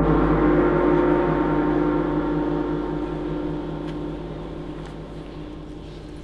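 A flat metal gong, hung from a cord held in the hand, ringing after a single strike and slowly dying away.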